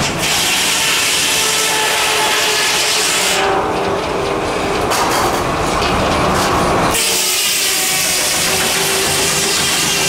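Antique sawmill saw, belt-driven by a steam tractor, running and cutting through a log: a steady, loud hiss with a faint whine in it. The sound changes for about three seconds in the middle, losing its highest hiss.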